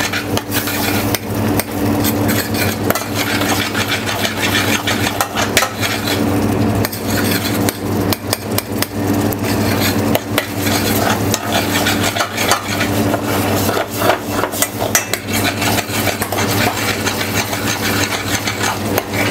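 Metal spoon stirring crab meat in a small stainless-steel saucepan, with rapid, irregular clinks and scrapes against the pan as the meat gently stews in brown butter. A steady low hum runs underneath.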